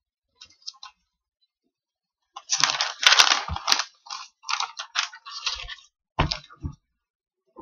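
Computer keyboard being typed on in quick, uneven bursts of clicking, with a few dull knocks mixed in toward the end.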